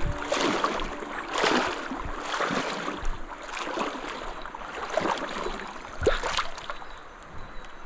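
River water sloshing and splashing in irregular bursts as someone wades and works a landing net through a shallow pool.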